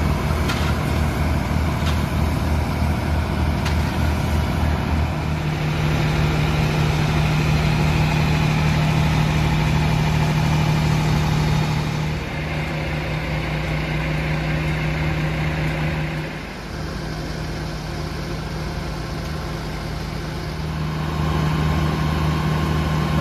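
Fire engines' diesel engines running steadily at a fire scene, powering the pumps that feed the hoses. The engine hum shifts in pitch and level a few times.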